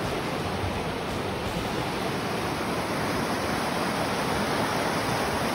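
Fast-flowing mountain stream rushing over rocks in white-water rapids: a steady, even rush of water.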